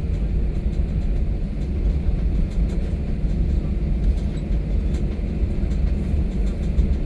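Steady low rumble inside an airliner cabin as the plane taxis to its stand after landing, the jet engines running at idle.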